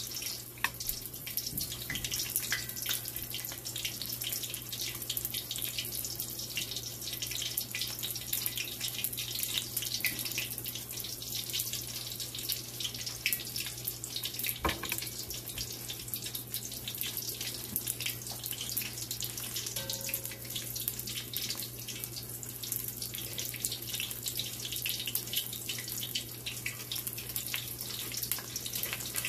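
Fritters deep-frying in hot cooking oil: a steady, dense crackle and sizzle of bubbling oil, with a single knock about halfway through.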